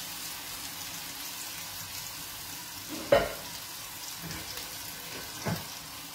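Wild broccoli sizzling steadily in oil in a frying pan. About three seconds in there is a sharp knock as the lid of the pasta pot is handled, and a lighter knock comes near the end.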